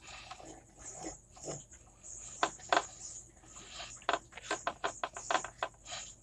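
Fingers spreading soft butter over the ridged non-stick plate of an electric sandwich grill: faint, irregular squishing and light tapping, busiest about two and a half seconds in and again from about four seconds in.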